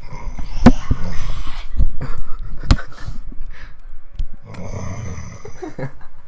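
A man snoring loudly: two long, rough snores about four seconds apart, with a few sharp clicks in between.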